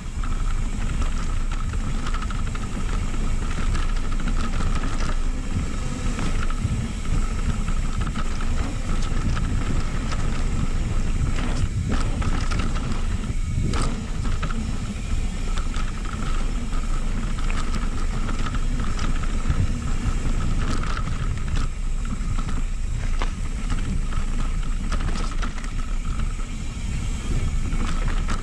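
Mountain bike rolling down a dirt and gravel trail, heard from a handlebar-mounted camera: a steady rumble of wind and knobby tyres on the dirt, with a constant high buzz and a few sharp knocks around halfway.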